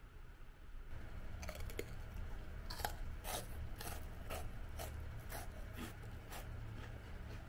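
Someone chewing puffed salted-butter rice crackers (mochi senbei), with short crisp crunches about twice a second over a steady low hum.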